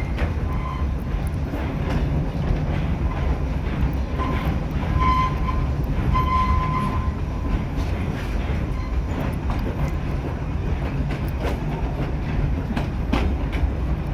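Passenger coach of a steam-hauled park railroad rolling along the track: a steady low rumble with wheels clicking over the rail joints. A few brief, faint high squeals come through the middle.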